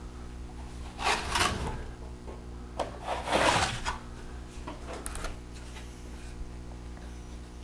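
Wide drywall knife scraping and wiping joint compound across a wall in two strokes, about a second in and about three seconds in, over a steady low hum.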